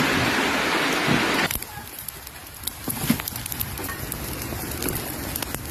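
Steady hiss of heavy rain that cuts off abruptly about a second and a half in, giving way to a quieter background with scattered crackles and pops of a bonfire burning.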